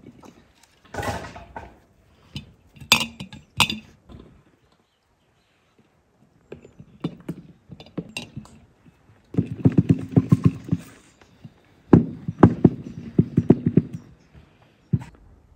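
Whole tomatoes being dropped and pressed into large glass jars, knocking dully against the glass and each other, with a few sharp glass clinks. Two runs of rapid knocking come about ten and thirteen seconds in.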